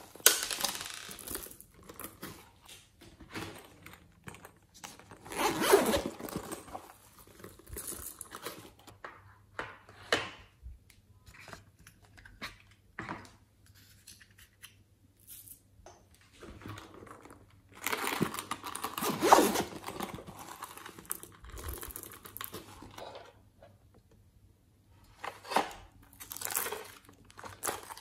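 Hands handling plastic cases, beads and moulds: irregular bursts of rustling, scraping and peeling noise, with quiet gaps between them.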